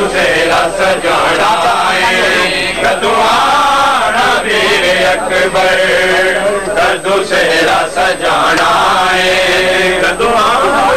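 Male voices chanting a noha, a Shia mourning lament, in a continuous, wavering melodic line.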